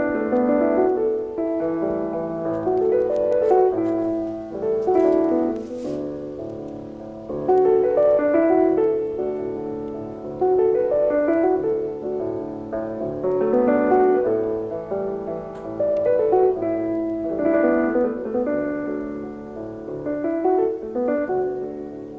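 Solo piano music: rolling phrases of notes that swell and fade every three to four seconds.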